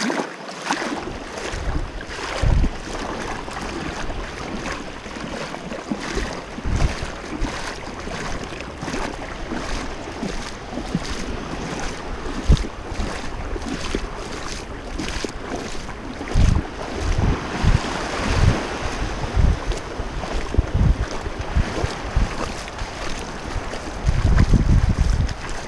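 Wind buffeting the microphone in repeated gusts, over small waves washing across a shallow shore.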